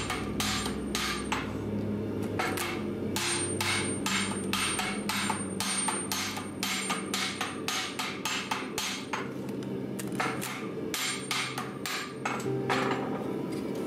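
Hand hammer striking a handled cross-peen top tool held on a hot steel lantern backplate, stamping a starburst pattern into the plate. The blows are sharp metal-on-metal strikes, about three a second, with a few short pauses.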